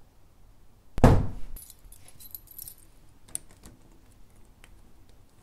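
A door shut firmly about a second in with one heavy thud, followed by about a second of keys jingling and a few small metallic clicks.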